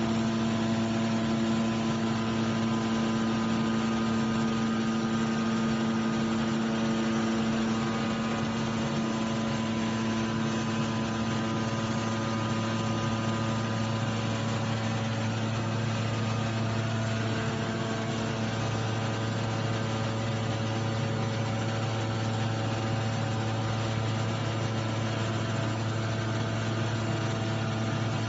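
CNC pneumatic oscillating knife cutting machine running as it cuts glass-fibre insulation: a steady mechanical hum with a strong buzzing tone that stays even throughout.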